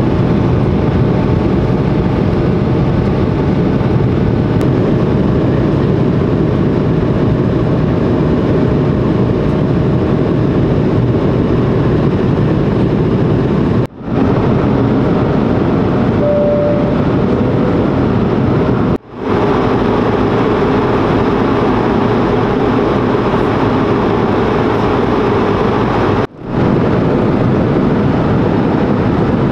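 Steady cabin noise of an Airbus A220-300 in the climb: airflow hiss and the rumble of its Pratt & Whitney PW1500G geared turbofans, heard from an economy seat and dropping out briefly three times. A short two-note tone sounds a little past halfway.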